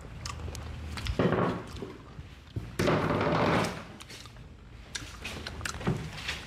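Tableware being handled on a glass-topped table: bowls and plates knocked and set down, with scattered clinks and two longer noisy handling sounds a little after one second and around three seconds in.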